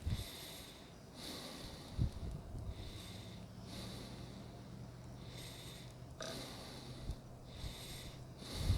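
Irregular gusts of wind hissing and thumping on the microphone, with a faint steady hum in the middle.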